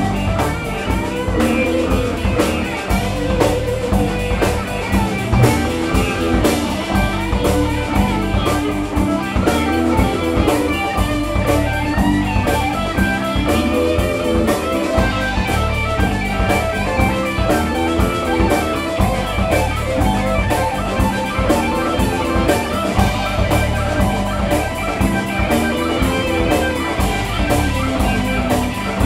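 Live alt-country rock band playing an instrumental passage with no vocals: guitars over a steady drum-kit beat.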